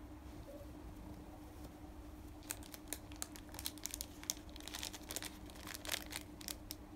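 Small plastic packets of earrings crinkling and crackling as they are handled, a scatter of sharp crackles starting about two and a half seconds in.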